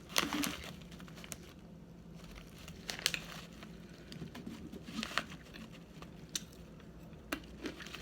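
Chewing mouthfuls of arrowroot starch powder, with short crunchy, squeaky crunches about every two seconds.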